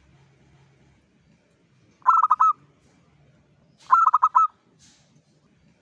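Zebra dove (perkutut) cooing: two short phrases of about five quick, clipped coos each, about two seconds apart.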